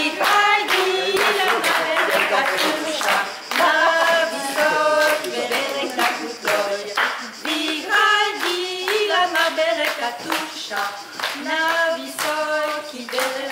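Women singing a song together, with hands clapping along in time to the beat.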